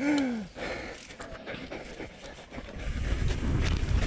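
A rider's short voiced exhale, falling in pitch, then hard breathing. About three seconds in, a loud low rumble sets in.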